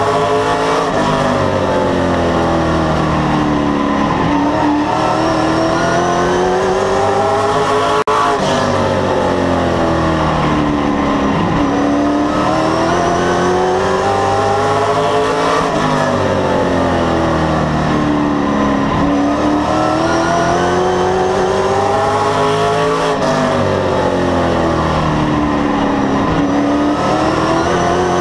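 Race car engine heard from inside the cockpit while lapping an asphalt oval. Its pitch drops into each turn and climbs again down each straight, in a cycle of about seven to eight seconds.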